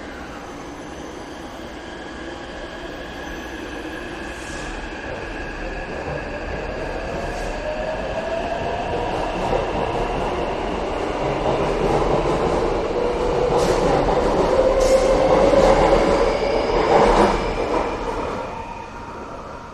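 Taipei Metro C381 train pulling out of the station, its motor whine rising in pitch as it picks up speed. Wheel and rail noise with a few clacks grows louder, is loudest near the end, then fades as the train leaves.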